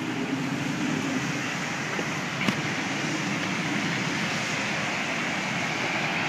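Infiniti QX56's V8 engine running close by, a steady hum mixed with street traffic noise, with one short click about two and a half seconds in.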